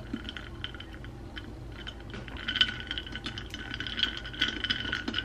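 A metal straw stirring iced coffee in a glass mason jar with a wooden lid: many quick, light clinks and rattles against the glass. A faint, steady high whine runs underneath.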